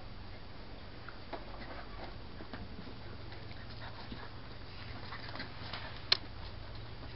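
Polish Tatra Sheepdog puppies giving faint, short whimpers and squeaks as they play, over a low steady hum, with one sharp click about six seconds in.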